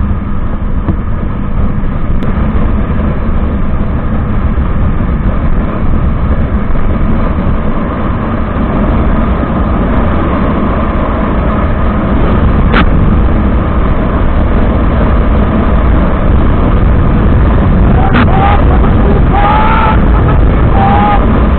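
Motorcycle on the move: wind rushing over the microphone makes a loud, steady low rumble, with the bike running underneath. There is a sharp click about halfway, and a few short rising-and-falling tones near the end.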